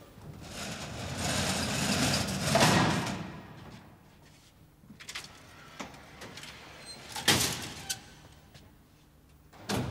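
Collapsible metal lattice gate of an old goods lift being dragged across with a long metallic rattle, followed by several sharp metal clanks, the loudest about seven seconds in.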